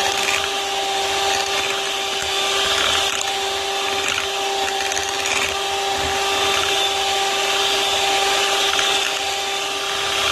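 Electric hand mixer running steadily, its beaters whipping a thick cream and condensed-milk mixture in a glass bowl, with a constant motor whine.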